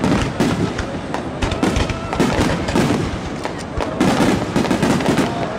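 Barrage of aerial firework shells bursting in quick succession, with many bangs overlapping without a break.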